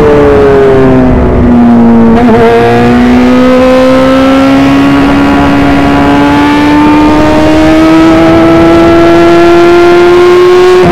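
Onboard sound of an F1000 formula car's 1000 cc motorcycle-derived engine at speed. The engine note drops over the first two seconds as the car slows, wavers briefly, then climbs slowly and steadily as the car accelerates for the rest of the time.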